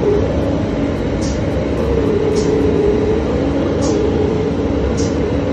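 Aquablast 1215 wet blasting cabinet in use: the blast gun sprays water-borne abrasive slurry onto a metal part, a loud steady hiss with a low machine hum underneath.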